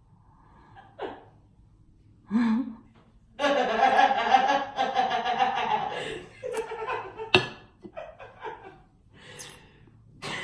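A person laughing, with a long loud stretch in the middle and short bursts after it. A sharp click comes about seven seconds in.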